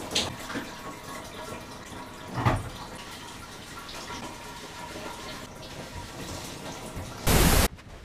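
Shower running in a shower cabin: a steady hiss of water spray, with a knock about two and a half seconds in and a short, loud burst of noise near the end.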